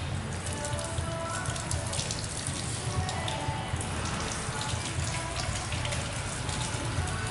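Water spraying from a hand-held shower head onto wet hair and splashing into a salon shampoo basin during a hair rinse, a steady splashing hiss with crackly drips.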